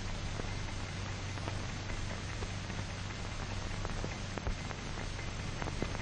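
Surface noise of an old optical film soundtrack: a steady hiss with a low hum and scattered clicks and pops.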